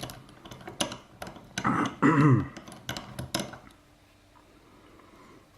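Sharp clicks and small knocks of a lock and tools being handled, with a brief vocal sound from the person about two seconds in; the handling stops after about three and a half seconds.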